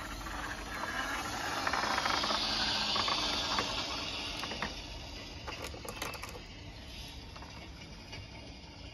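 Plastic toy garbage truck pushed by hand across a wooden floor: a hiss of its wheels rolling, swelling and then fading, with a few light clicks.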